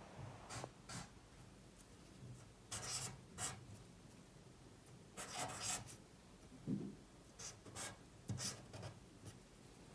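Felt-tip marker writing numerals on a sheet of paper: short, faint strokes of the tip across the paper, coming in small groups every second or two.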